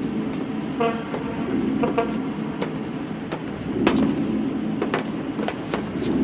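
Steady street and vehicle noise with scattered knocks, and two short horn toots about a second apart, one about a second in and the other about two seconds in.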